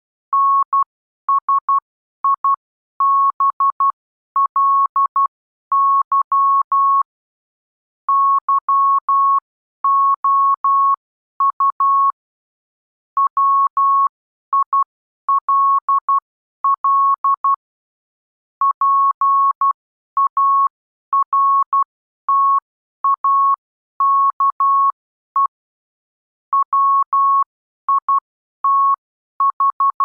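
Morse code (CW) practice signal: a single steady tone keyed on and off in dots and dashes, with gaps between characters and words. It is sending plain-language text, spelling out the words "sensibly you will partake wit…".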